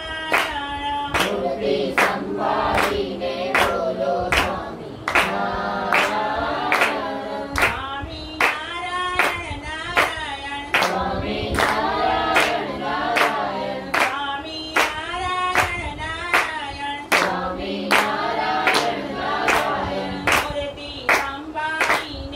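A small group of men, women and children singing a devotional prayer together, clapping their hands in time on a steady beat of about two claps a second.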